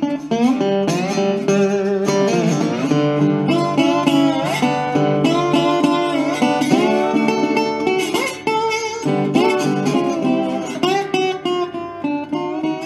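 National ResoRocket resonator guitar played solo with a slide in a delta blues style: picked bass notes under treble lines that glide up and down into their notes.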